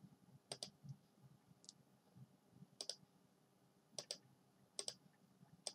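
Faint computer mouse button clicks, about five of them at irregular intervals, most heard as a quick doubled click of press and release. Each click places a point of a curve being drawn.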